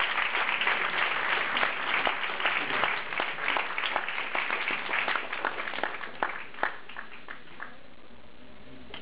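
Audience applauding: dense clapping that thins out from about six seconds in to a few scattered claps, then dies away near the end.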